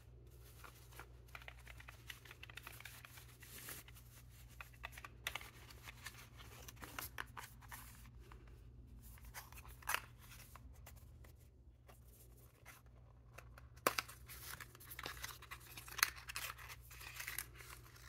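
Faint rustling and crinkling of gift packaging being handled: a drawstring pouch, then a small cardboard box being opened, with a few sharp clicks and taps along the way. A steady low hum sits underneath.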